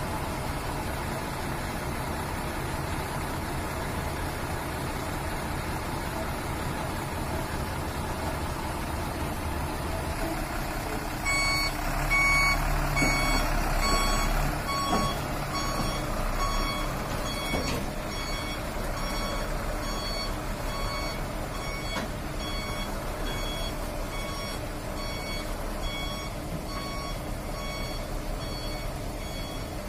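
Diesel container truck running, and about eleven seconds in its reversing alarm starts: a pitched beep repeating in a steady rhythm while the truck backs up. The engine rises in level for a few seconds as the beeping begins.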